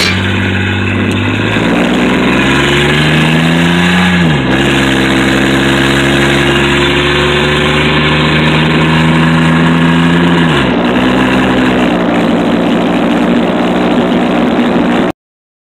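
Chevrolet Blazer engine with the muffler cut off, heard loud from inside the cab as it accelerates on the road. The pitch climbs, drops at a gear change about four seconds in, then climbs slowly and drops again at a second shift about ten and a half seconds in before holding steady. It cuts off abruptly near the end.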